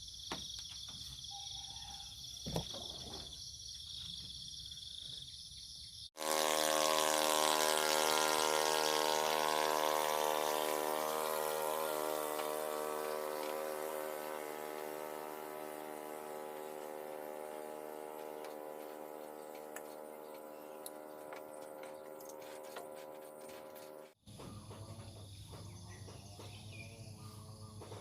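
Insects, crickets by their steady high chirring, for the first few seconds and again near the end. Between them, a loud sustained tone with many overtones starts abruptly about six seconds in, slowly fades, and cuts off suddenly about six seconds later than eighteen seconds on.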